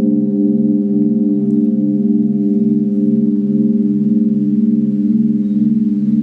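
A steady low musical drone of several held, bell-like tones sounding together, pulsing evenly a little over twice a second.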